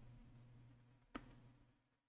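Near silence: room tone, with one faint click just over a second in.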